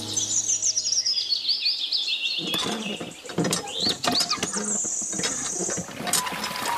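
Birds chirping, with a high descending trill at first. From about two and a half seconds in, irregular clicks and squeaks come from the little lever of a miniature hand pump being worked.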